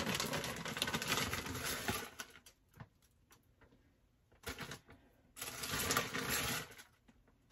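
Plastic bag of shredded cheese crinkling and rustling as cheese is taken out and sprinkled into a frying pan, in two bouts: one at the start and another about two-thirds through, with a few faint clicks between.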